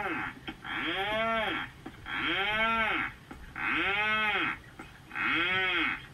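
Rhinoceros auklet giving its distinctive low mooing call over and over. The calls come about one every second and a half, each about a second long and rising then falling in pitch.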